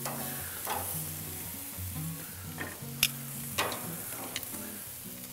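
Marinated beef short ribs sizzling on a hot grill grate while metal tongs lift them off, with a few sharp clacks of the tongs and of ribs set into a glass baking dish, the loudest about three seconds in. Soft background music plays underneath.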